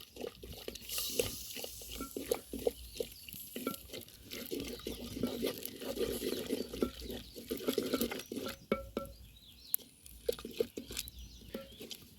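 Cooking stick stirring vegetables and tomatoes in a cooking pot, with irregular scraping and small knocks against the pot.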